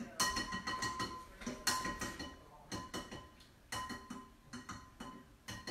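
A soft-boiled egg's shell being tapped and cracked against a glass bowl: light clicks about once a second, each with a brief ringing from the glass.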